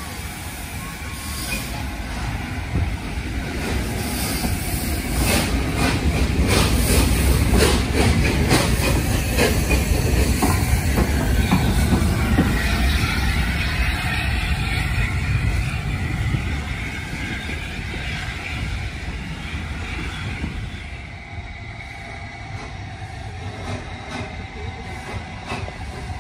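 A4 Pacific steam locomotive 'Union of South Africa' running slowly past with a heavy rumble and a run of sharp clicks and clanks from its wheels and motion, with some steam hiss. It grows louder to a peak in the middle as it passes close, then fades as it draws away.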